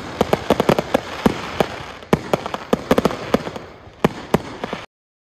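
Aerial fireworks going off in a rapid barrage of sharp cracks and bangs, several a second, over a steady crackling hiss. The sound stops abruptly near the end.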